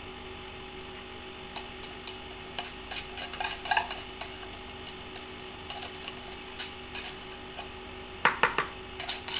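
Metal utensil clinking and scraping against a tin can of sweetened condensed milk as the last thick milk is worked out over the mixing bowl: scattered light clicks, then a louder cluster of knocks near the end, over a steady low hum.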